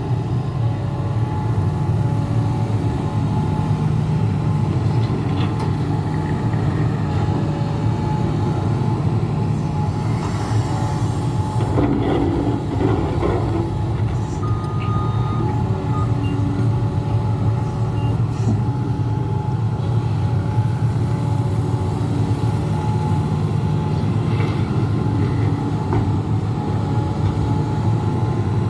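Hidromek HMK 390LC crawler excavator's diesel engine running steadily under load while loading dump trucks, with a brief louder patch about twelve seconds in.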